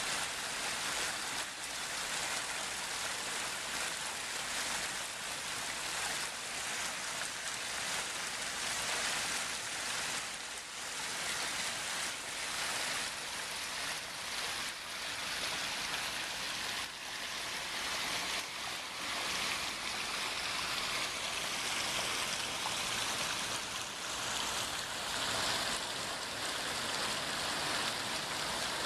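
Water steadily splashing and rushing down a six-tier garden waterfall into a stream and pond.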